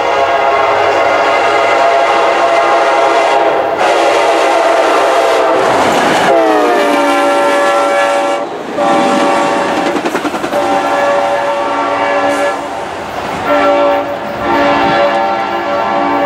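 Passenger train locomotive's multi-tone horn sounding close by. It drops in pitch about six seconds in as the locomotive passes, then goes on in the long, long, short, long pattern of a grade-crossing signal. The wheels of the passing coaches clatter on the rails underneath.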